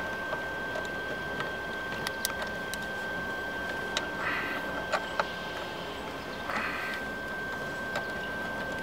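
A socket ratchet turning out a 10 mm radio mounting bolt inside a car's dash: scattered light clicks of metal and plastic, with two short bursts of ratcheting about four and six and a half seconds in, over a steady hiss.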